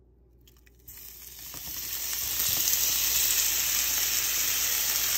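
Seasoned shrimp sizzling in hot olive oil in a frying pan over high heat. The sizzle starts about a second in and builds to a steady hiss.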